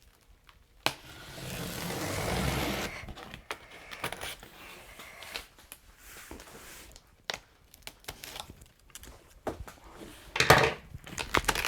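Cardboard box being opened by hand: a sharp click about a second in, a couple of seconds of cardboard scraping and tearing, then scattered rustles and knocks of packaging, with louder handling near the end.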